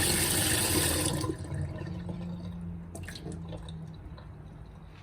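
Water running hard from a tap into a sink, shut off a little over a second in. Afterwards a few faint clicks and a low hum.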